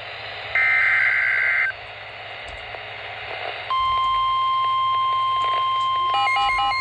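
Weather-radio emergency alert: a SAME digital header burst, a harsh data screech lasting about a second, starts about half a second in. After a pause of about two seconds, the steady 1050 Hz warning alert tone comes on, signalling a severe thunderstorm warning. Near the end a second, rapidly alternating beep pattern joins the tone.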